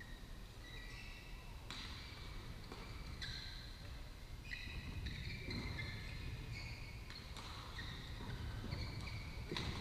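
Distant badminton players' shoes squeaking on the court mats, many short high squeaks overlapping, with a few sharp racket smacks on the shuttlecock, over a steady low rumble.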